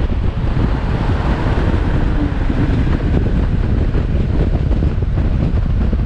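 Heavy wind noise buffeting the microphone of a moving motorcycle, a loud, steady rumble, with the road and engine noise of the ride beneath it.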